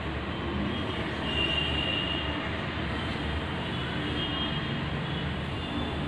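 Exhaled breath blown steadily through a straw, bubbling into a test tube of pink sodium hydroxide and phenolphthalein solution. The carbon dioxide in the breath is being bubbled through to neutralise the alkali.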